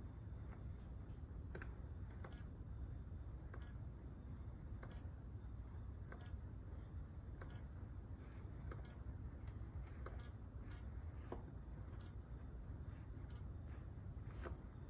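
Short, high bird-like chirps, each falling slightly in pitch, repeating about once every 1.3 seconds and now and then in quick pairs, over a faint steady low hum.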